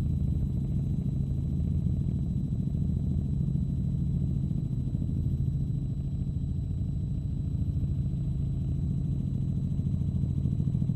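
Helicopter rotor and engine noise heard inside the cabin: a steady low drone with a fast, even pulsing, and a faint steady high whine above it.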